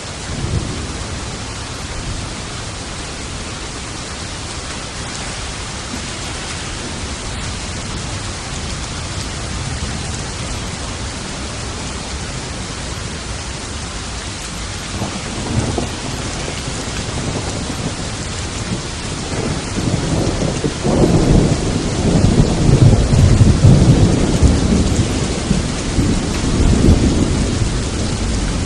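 Steady rain with rolling thunder. A brief low rumble comes near the start and another about halfway. A longer, louder rumble starts about two-thirds of the way through and rolls on to the end.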